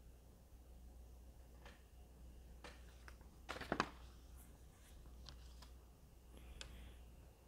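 Near-silent room tone with a steady low hum, broken by a few faint, small clicks and a short cluster of sharper clicks about three and a half seconds in.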